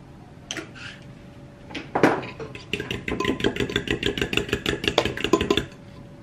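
A utensil beating eggs and liquid cream in a ceramic bowl, with quick, rhythmic clinking against the bowl for about three seconds. Before that, a couple of short shaking noises as salt and pepper go in.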